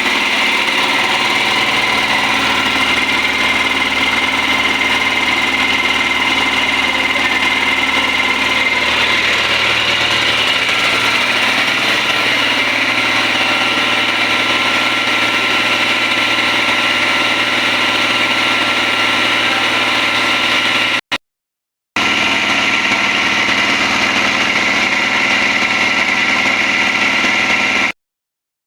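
Yanmar C220 ship's air compressor running steadily. The sound cuts off briefly twice in the last third.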